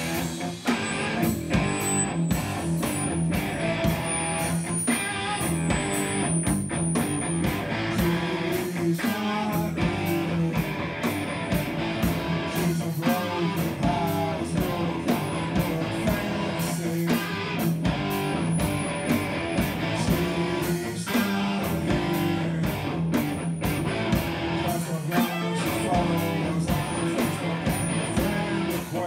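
A live rock band plays with strummed electric guitar over a drum kit keeping a steady beat.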